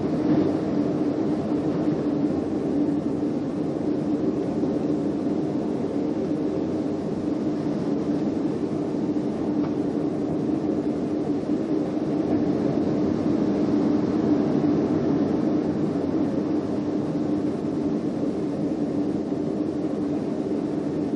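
Severe thunderstorm wind of up to about 100 mph blowing against a building, heard indoors through a window as a steady, low rushing noise that swells a little about two-thirds of the way through.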